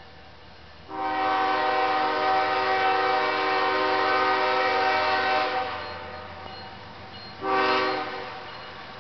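Freight diesel locomotive's multi-chime air horn: one long blast starting about a second in, then a short blast near the end. It is sounding for the grade crossing ahead.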